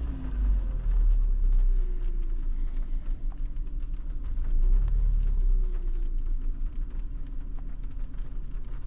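2019 Hyundai Elantra's 2.0-litre four-cylinder petrol engine running with a misfire on one cylinder, revved up twice: about a second in and again around five seconds in.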